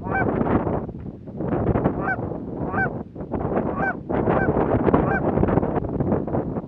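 Canada goose honks: short, clipped honks with an upward pitch break, coming about once a second, over a constant rough rustling noise.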